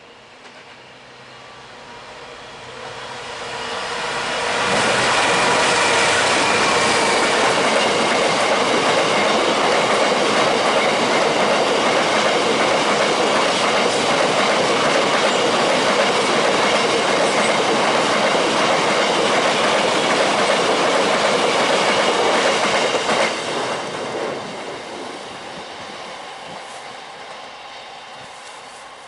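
A train passing close by on the rails, building up over a few seconds, staying loud for about eighteen seconds as it goes past, then fading away. Wheels clatter over the rail joints, with steady high squealing tones from the wheels on the rail.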